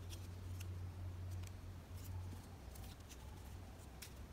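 Origami paper crinkling and rustling in short, faint ticks as it is folded and pressed between the fingers, over a low steady hum.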